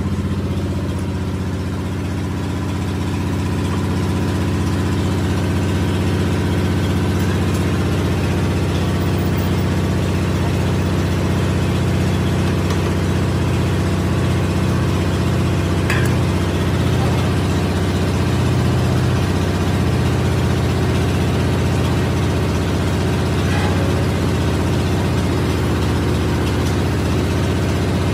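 Steady low mechanical hum of running workshop machinery, like an engine idling, with a few faint metallic clicks.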